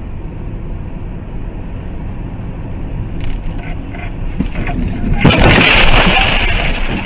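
Steady road and engine noise heard inside a car on a motorway, with a few sharp knocks, then about five seconds in a loud harsh rush as grit and debris from the car ahead are thrown against the windscreen.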